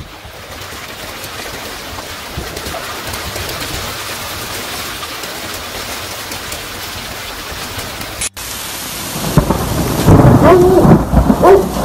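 Hail pelting down on a parked SUV and the ground around it, an even hiss that slowly grows louder. About eight seconds in it breaks off and gives way to louder, rougher rumbling with short pitched calls.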